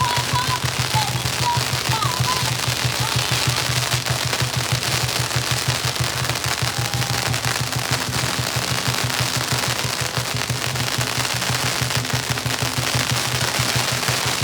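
Long strings of firecrackers going off in a rapid, unbroken crackle of pops.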